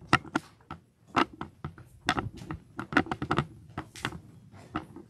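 A quick, irregular run of small clicks and knocks, several a second: handling and movement noise, with no ringing tone.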